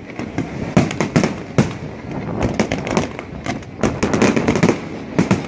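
Large fireworks display: a rapid, unbroken series of sharp bangs and crackles as shells are launched and burst, several a second, growing denser and louder about four seconds in.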